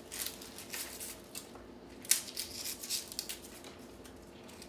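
Dry papery rustling and crinkling as an onion is picked up and handled, in short irregular scratchy bursts, with a sharper knock about two seconds in, over a faint steady hum.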